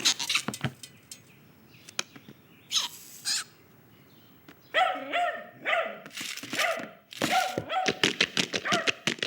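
A dog giving short, repeated yips and whines from about five seconds in, amid scattered knocks and thunks. Before that there are a few clicks and light knocks and a brief lull.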